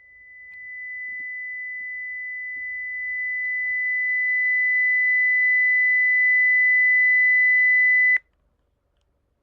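Hearing-test pure tone at one steady high pitch, played for a lowest-discomfort-level test: it grows louder over about eight seconds, then cuts off suddenly.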